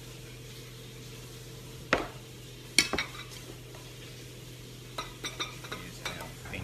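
Ceramic rice bowls and a rice cooker's inner pot knocking and scraping as cooked rice is scooped out by hand: two sharp knocks about two seconds in, then a run of lighter taps near the end, over a steady low hum.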